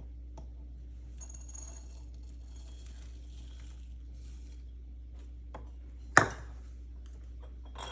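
Dry rolled oats rustling faintly as they are scooped into a jar, with a few small clicks. About six seconds in there is one sharp knock, the loudest sound, like a spoon or jar being knocked on the counter.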